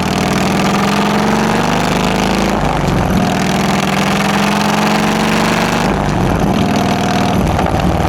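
Harley-Davidson Electra Glide's 1584 cc Twin Cam 96 V-twin engine running through a newly fitted exhaust, mostly at idle. The engine note shifts about two and a half seconds in and again around six seconds in as the engine speed changes.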